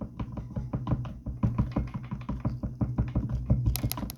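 Background music with a quick drum beat over a steady bass line, cutting off abruptly at the end.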